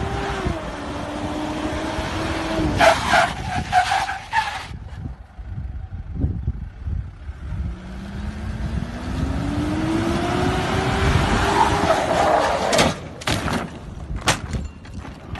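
A motor vehicle's engine running over a rushing road noise, its pitch dropping early on and then climbing slowly as it speeds up. Two clusters of sharp knocks come about three seconds in and again near the end.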